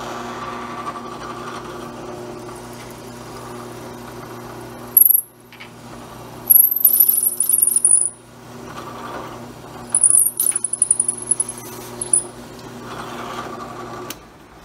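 Drill press running with a steady motor hum while a twist bit is fed into a resin pen blank. Three times the bit bites in with a loud, high-pitched squeal, a short one and then two longer ones. The hum stops just before the end.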